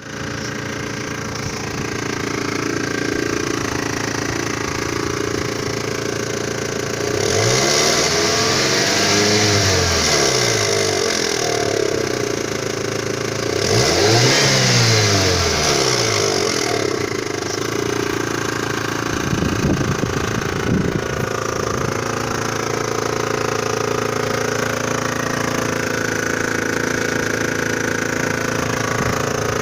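Great Wall Hover's 4G64S4M four-cylinder petrol engine running with a knock, blipped up and back down twice, with a run of sharp knocks about two-thirds of the way through. The owner puts the knock down to a slackened timing-belt roller and the timing-belt tensioner rod flapping.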